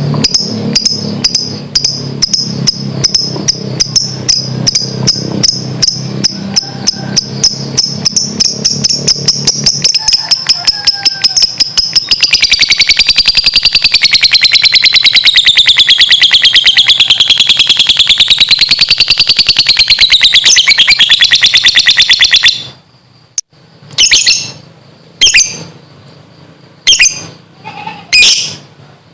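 A lovebird's long 'ngekek' song: rapid, evenly repeated high chattering notes that speed up into a fast continuous trill, wavering up and down in pitch. The trill stops abruptly about 22 seconds in, and a few short separate calls follow.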